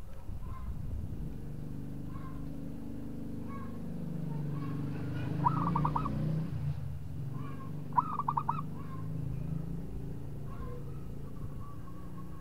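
Zebra dove cooing: short call notes repeated about once a second, broken twice by a quick rolling trill, over a steady low drone.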